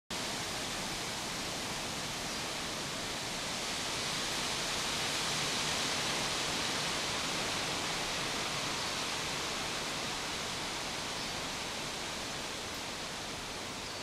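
Steady outdoor background hiss with no distinct events, swelling slightly a few seconds in and easing off toward the end.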